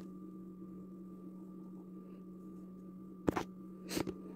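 Steady low electrical-sounding hum, with a brief click at the very start and two short, sharp knocks about three and four seconds in, the loudest of them close together.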